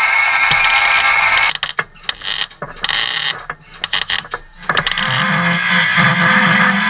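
A power tool working on the car's sheet-metal repair panels. It runs steadily with a high whine, stops after about a second and a half, gives a few short bursts, then runs steadily again from about two-thirds of the way in with a lower hum.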